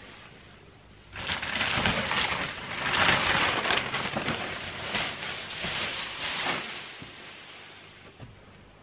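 Plastic wrapping crinkling and rustling as it is pulled and bunched off a mattress topper. It starts about a second in, is loudest around three seconds, and dies away after about six and a half seconds.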